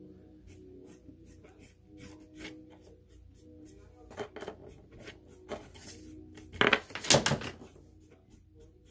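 Paintbrush tapping and scrubbing against a paint palette and a canvas board: a run of light clicks and scratches, loudest in a short scratchy stretch a little past the middle.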